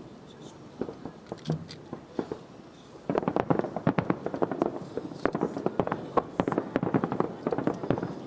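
Fireworks going off: a few separate bangs, then about three seconds in a dense, rapid run of crackling pops.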